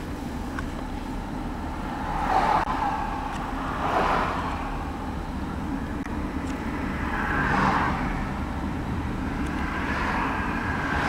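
Road noise and engine hum heard from inside a moving car: a steady low rumble with four brief swells of louder rushing noise.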